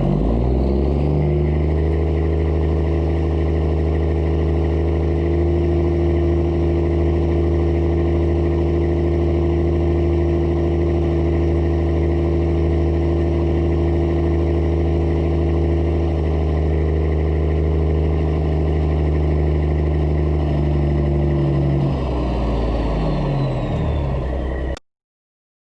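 Mack truck's diesel engine pulling at a steady speed. It climbs in pitch in the first second, holds steady, then winds down over the last few seconds before cutting off suddenly.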